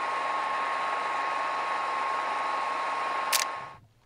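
Steady hiss like static, with a constant mid-pitched tone under it, laid over the opening title card. A sharp click comes just before it fades out near the end.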